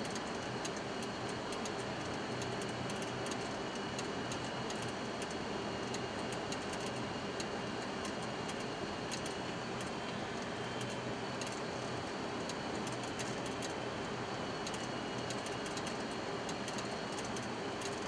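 Steady cockpit noise of a Boeing 737-200 on short final: the even rush of airflow and its Pratt & Whitney JT8D engines, with a steady high whine and many faint ticks over it.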